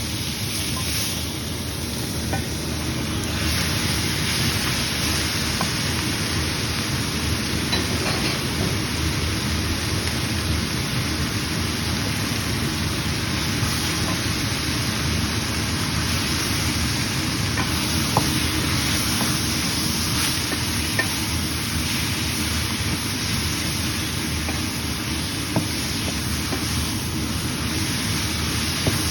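Beef and vegetables sizzling steadily in a hot pan as they are stir-fried, with a few sharp clicks near the middle and end.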